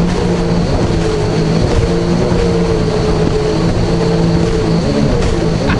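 Jet ski engine running steadily under way, with rushing water and wind noise.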